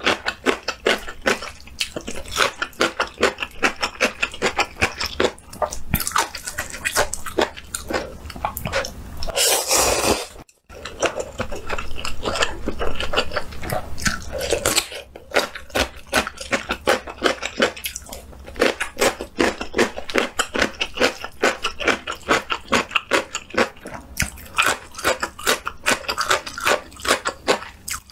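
Close-miked eating: wet chewing and smacking in a rapid run of sharp clicks, with crunching bites of red pickled radish and slurps of instant noodles. The sound drops out for a moment about ten seconds in.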